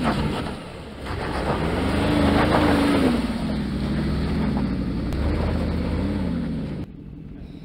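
Mercedes-Benz G-Class V8 engine revving under load on a rocky off-road climb, its pitch rising and falling, over the scrabble of tyres spinning on loose dirt and stones. The sound cuts off abruptly near the end.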